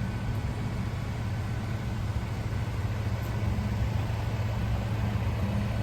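Vehicle engine idling: a steady low hum with a light background hiss.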